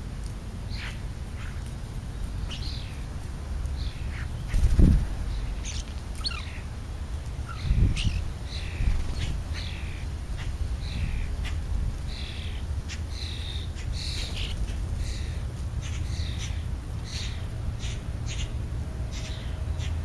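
Many short bird calls, about one or two a second, from European starlings and house sparrows feeding on scraps, over a steady low rumble. Two louder thumps come about five and eight seconds in.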